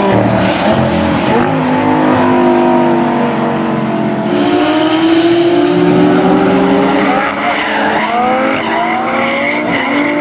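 Lamborghini Gallardo's V10 engine revving hard through a drift, its pitch holding and then rising and falling repeatedly, with tyres squealing.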